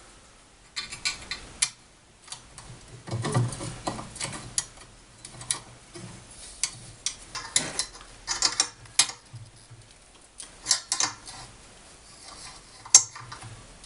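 Small steel parts of a homemade jigsaw-machine attachment being handled and fitted: irregular clicks, taps and metallic clinks, with the sharpest knock near the end.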